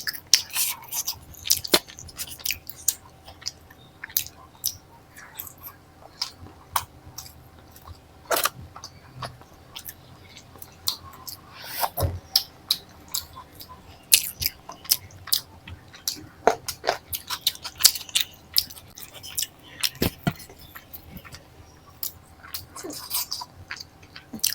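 Close-up mouth sounds of eating flatbread with a paneer curry: irregular chewing and wet smacking clicks, with a few louder bites.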